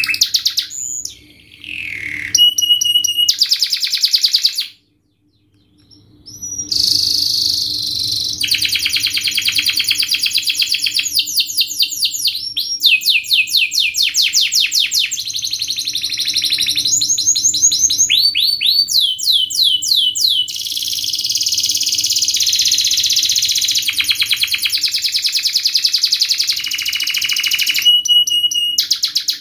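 Domestic canary singing long, fast rolls of rapid repeated notes and sweeping trills, with one short pause a few seconds in.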